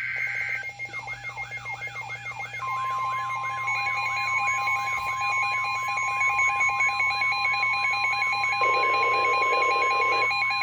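Emergency Alert System alert tones. A two-tone data burst cuts off just under a second in, then layered electronic alarm tones sound: a sweeping whoop repeating about three times a second over a steady tone. A second steady tone joins a couple of seconds later, then a high two-note warble, with a buzzing band briefly near the end.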